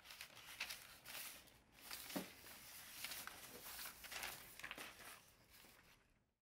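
Sheets of loose paper rustling and shuffling quietly as they are handled and sorted, with irregular crisp rustles, dying down near the end.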